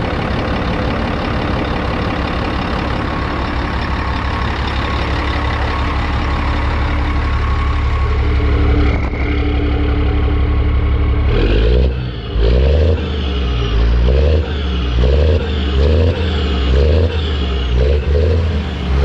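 Scania 124's six-cylinder diesel engine running, heard at the exhaust pipe, back in running order after standing for 14 years. It idles steadily, then from about eleven seconds in it is revved in short blips, roughly one a second, each rising in pitch.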